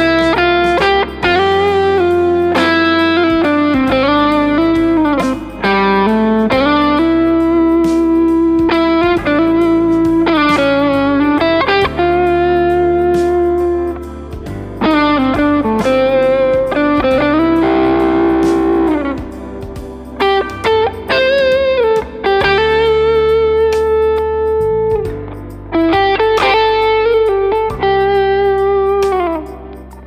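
PRS Singlecut Artist Package electric guitar playing a lead melody over a backing track: held single notes with vibrato, string bends and quicker runs.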